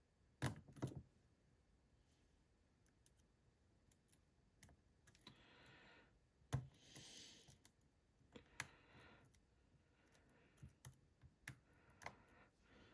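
Faint, scattered clicks and soft scraping of a lock pick and tension tool working the sliders inside an ASSA Desmo lock, with sharper clicks about half a second in and again about six and a half seconds in.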